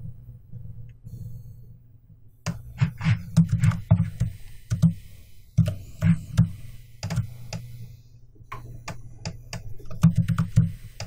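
Computer keyboard clicking and tapping in irregular clusters, over a low steady hum.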